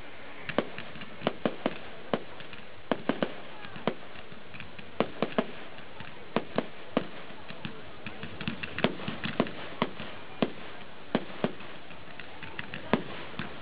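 Fireworks display: a run of sharp bangs from rockets and aerial shells bursting at irregular intervals, one or several a second, coming thickest a little past the middle, over a steady background rush.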